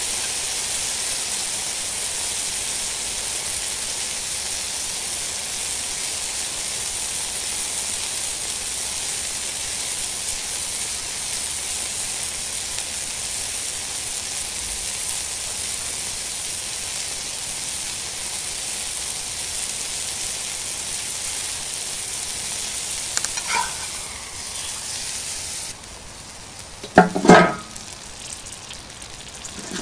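Steak sizzling in a cast iron pan, a steady frying hiss. Near the end the sizzle drops away and two short knocks follow.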